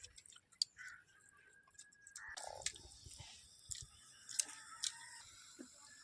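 People chewing mouthfuls of chicken biryani and chicken, with scattered small wet smacks and clicks.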